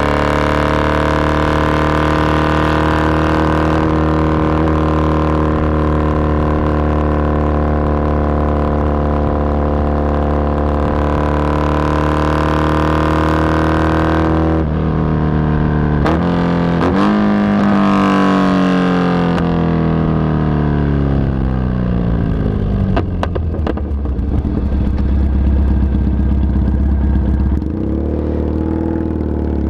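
Triumph Bonneville 865 parallel-twin running loud through MGO pipes with the baffles removed. It holds a steady note that sags slightly, then after a brief break about halfway through the revs fall in a long descending note with a few short cracks, before settling at a lower steady note near the end.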